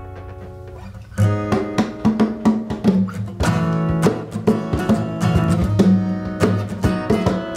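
Acoustic guitar chord ringing out. About a second in, the guitar starts rhythmic strumming, joined by congas played by hand.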